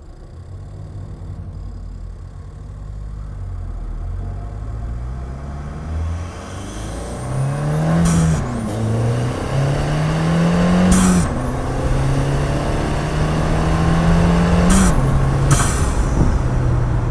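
2015 Ford Fiesta ST's turbocharged 1.6-litre four-cylinder pulling hard under acceleration, with a cold air intake. The engine note climbs through the revs and drops with each of three upshifts, about 8, 11 and 15 seconds in. Each shift brings a short whoosh of turbo air.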